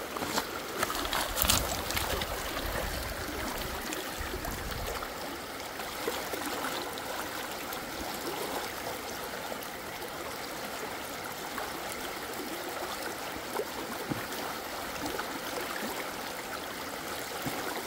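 River water running over a shingle bed, a steady rushing hiss. A sharp click comes about a second and a half in, and a low rumble sits under the water for the first five seconds or so.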